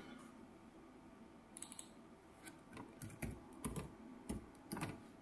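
Computer keyboard typing, faint and irregular: a quick run of keystrokes about one and a half seconds in, then scattered single taps.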